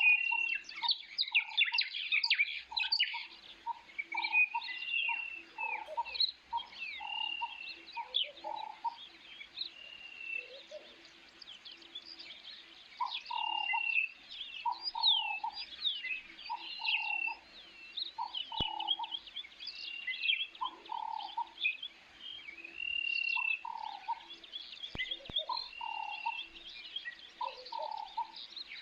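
Several birds chirping and calling. A short arched high note repeats every second or two over lower, rounder calls, with a busy spell of quick chirps in the first few seconds.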